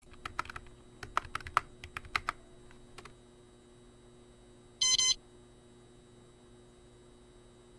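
Computer keyboard typing, a quick run of key clicks lasting about three seconds, then a short electronic computer beep nearly two seconds later, over a faint steady hum.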